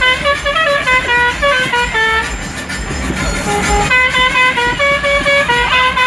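Musical air horn of a tourist vehicle playing a tune in quick stepped notes, in two phrases with a short break near the middle, over the low rumble of the moving vehicle.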